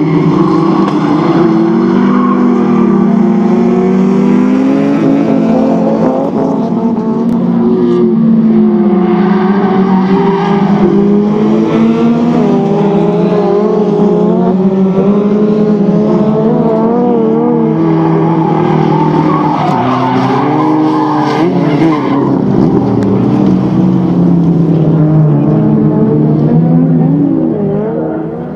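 Several folkrace cars' engines racing at high revs at once, their pitches rising and falling as the drivers shift and lift through the corners. The noise fades near the end.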